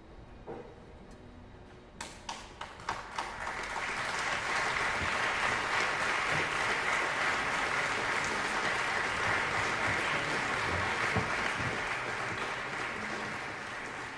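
Theatre audience applauding. A few scattered claps about two seconds in swell within a couple of seconds into full, steady applause, which eases slightly near the end.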